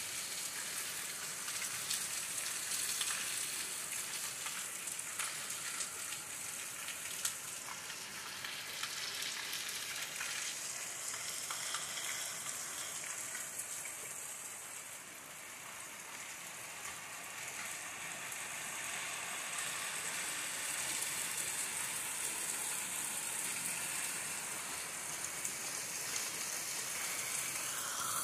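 Rain falling steadily, a continuous even hiss with the odd tick of a drop.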